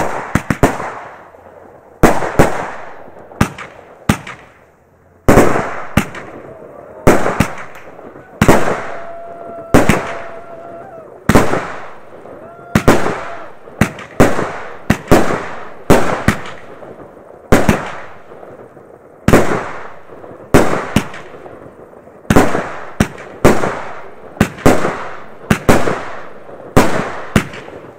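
Aerial fireworks going off shot after shot, a sharp bang roughly every second, often as a quick double report, each echoing away.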